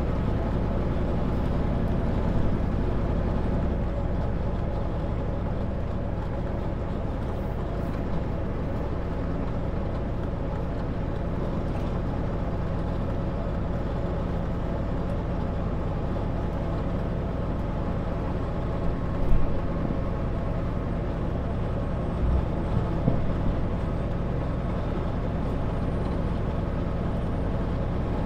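Kenworth W900L semi truck's diesel engine running steadily at cruise with road noise, heard from inside the cab. There are a couple of brief knocks a little past the middle.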